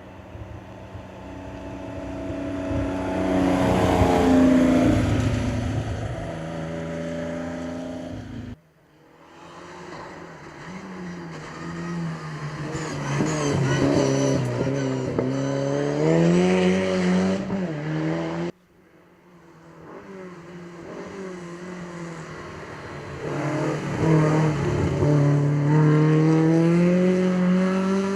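Classic rally cars' engines revving hard as they drive past, their note rising and falling through the gears. The sound comes in three separate passes, and each of the first two cuts off abruptly.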